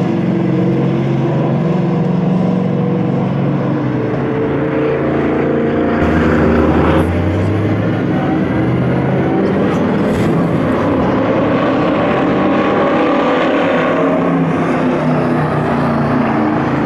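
V8 stock car engines running at speed around the track as several cars pass, engine pitch rising and falling as they go by.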